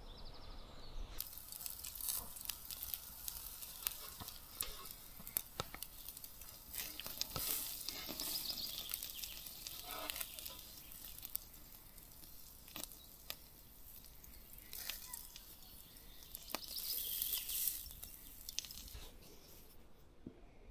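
Quiet rustling with scattered small clicks, as of something being handled, and a couple of brief louder hissy stretches.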